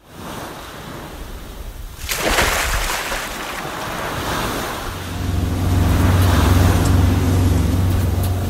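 Sea waves washing, with a louder surge about two seconds in. From about five seconds a steady low hum joins them.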